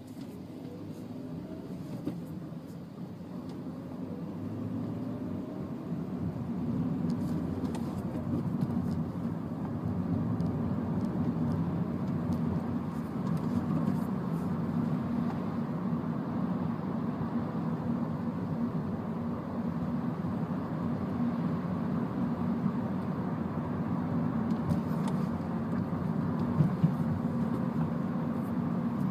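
Inside the cabin of a manual MINI Cooper under way: engine and road noise that build up over the first several seconds as the car gathers speed, then run on steadily. Two brief knocks come near the end.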